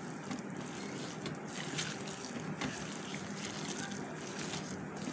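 A hand mixing and kneading raw chicken mince with chopped onion, tomato and spices in a plastic bowl: steady squishing with small irregular peaks.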